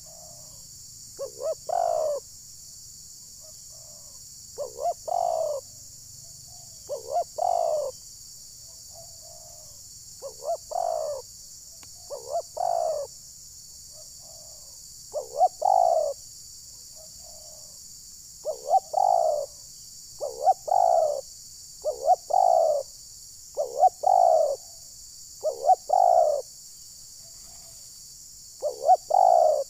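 Spotted dove cooing: a repeated phrase of two or three short notes ending in a longer coo, given about every two to three seconds.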